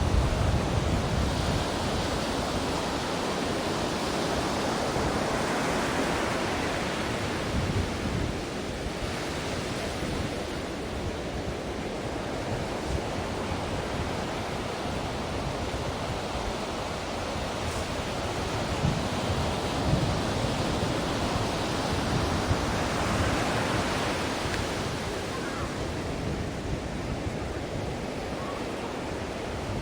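Ocean surf: a steady rush of waves breaking and washing in, swelling and easing again a few times.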